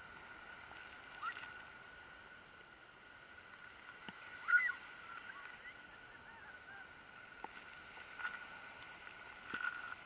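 Faint bird chirps: a few short calls, the clearest about halfway through, over a steady high-pitched hum.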